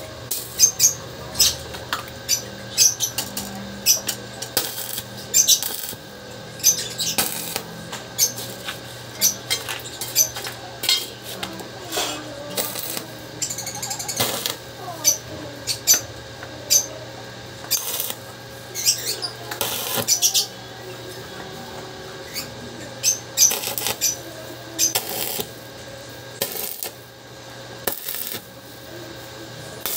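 Stick welder tack-welding a steel wire-mesh panel: a long run of short crackling arc strikes, most a split second and a few lasting about a second, over a steady low hum.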